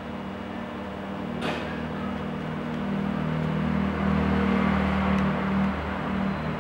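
A motor engine running steadily nearby, swelling louder in the second half and easing off, with one sharp click about one and a half seconds in.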